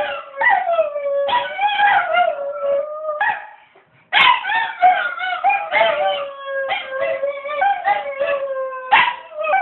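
Dogs howling: long wavering howls that slide down in pitch, broken up by short cries, with a brief pause about three and a half seconds in.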